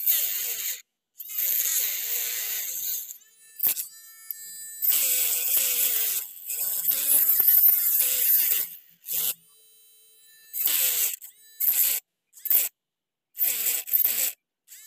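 Small handheld rotary tool with a thin metal cutting disc cutting into PVC pipe in several short passes: a high, gritty hiss of the cut over a small motor's whine that wavers in pitch as the disc bites. The sound cuts off abruptly several times.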